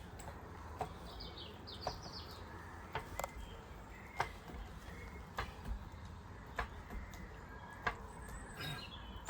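A jack being pumped by hand to lift the polytunnel frame and tighten its cover: a sharp click about once a second. A bird chirps briefly a second or two in.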